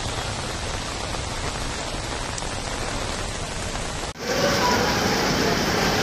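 Steady hiss of heavy monsoon rain. About four seconds in it cuts off abruptly and gives way to a louder rush of rain and floodwater with faint voices.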